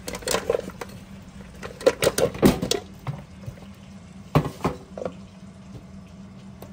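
Boiled mud clam shells clattering against a pot and each other, with some water sloshing, in three short bursts of clinks and knocks.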